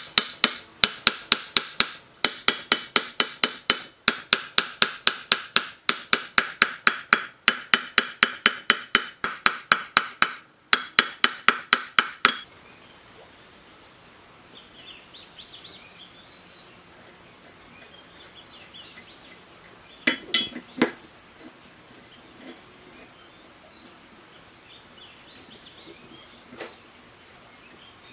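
Hammer tapping a metal impeller down onto a water pump's shaft: quick ringing metal strikes, about three a second, which stop about twelve seconds in. Later come a couple of separate knocks and faint bird chirps.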